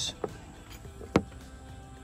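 Quiet background music, with a sharp metallic click about a second in and a softer one just after the start: a small square steel shim being set down on a hard surface.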